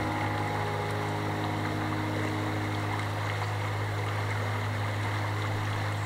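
Shallow river running over a rocky riffle: a steady rush of water. A low steady tone sounds beneath it.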